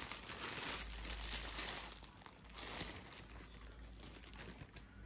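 Plastic packaging crinkling and rustling as an item is handled out of its wrapping, busiest for about the first two seconds, with a shorter rustle about halfway through and fainter handling after.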